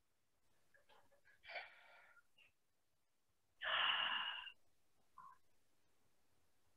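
A person sighing out through the mouth as a relaxation breath: a faint exhale about a second and a half in, then a louder, longer sigh about three and a half seconds in.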